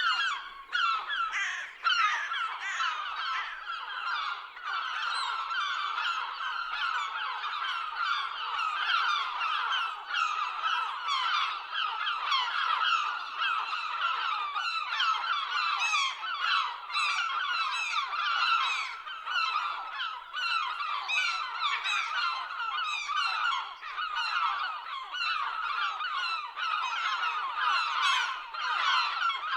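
A flock of seagulls calling without pause, with many short cries overlapping one another.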